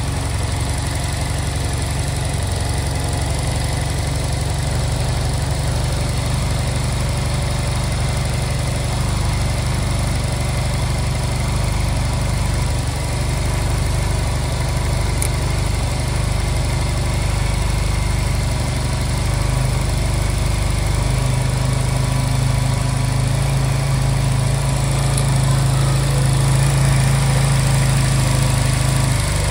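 Honda Silver Wing scooter's parallel-twin engine idling steadily while its carburettors are synchronised and the idle is set. The idle note grows a little louder about two-thirds of the way through.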